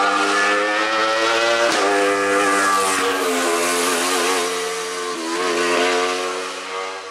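Wolf Thunder sports-prototype race car's engine at high revs, driven hard through a hillclimb bend. There is a sharp crack about a second and a half in and a brief dip and rise in pitch around five seconds. It fades near the end as the car pulls away.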